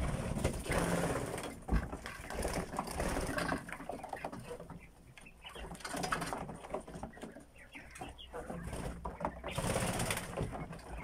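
A flock of young Japanese quail of the white giant ('polar giant') strain calling in many short, scattered chirps. There is a low thump at the start and another about two seconds in.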